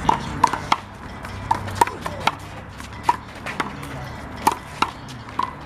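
A rubber handball being hit during a rally: about a dozen sharp smacks, irregularly spaced, as the ball is slapped by hand, strikes the wall and bounces off the ground, each with a short ringing ping.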